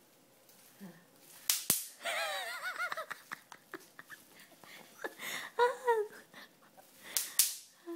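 Bubble wrap being popped by hand: scattered sharp pops at uneven intervals, the loudest about a second and a half in and near the end. A person's voice comes in between the pops.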